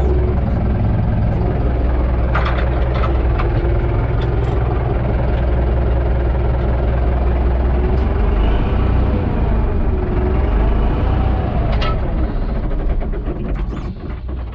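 UTB Universal 650 tractor's diesel engine running steadily, heard from inside the cab, with a few sharp clicks; the engine sound falls off near the end.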